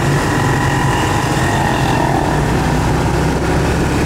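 Motorcycle engine running steadily while riding through street traffic, heard from on board, under a steady low rumble of wind and road noise.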